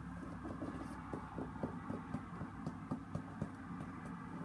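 Faint handling noise from a bowling shoe being turned over and touched in the hands: small irregular taps and clicks, several a second, over a low steady hum.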